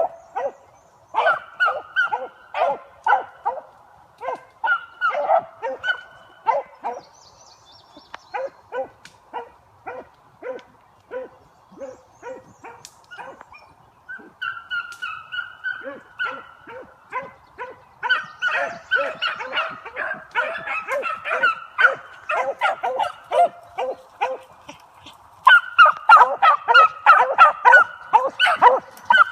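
Several beagles baying on a scent line, a string of short overlapping barks and yelps with a few longer drawn-out notes, growing louder near the end.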